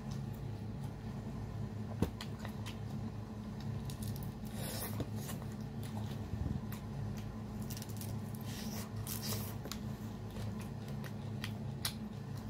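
Close-up eating sounds: wet chewing and smacking of saucy glazed seafood, with scattered small clicks and crackles and a sharp click about two seconds in, over a steady low hum.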